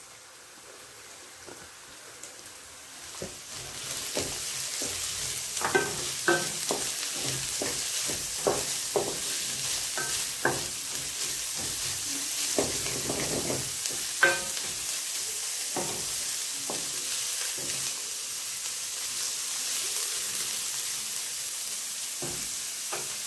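Chopped vegetables sizzling in olive oil in a kadhai, stirred with a wooden spatula that scrapes and taps irregularly against the pan. The sizzle grows louder about three and a half seconds in.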